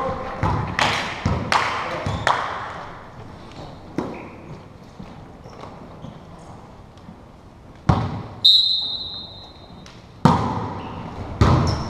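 Volleyball being struck by hands and arms during a rally, a string of sharp thuds echoing around a large gym hall. About eight and a half seconds in, a referee's whistle blows once, a steady high note lasting under a second, and a loud hit follows soon after.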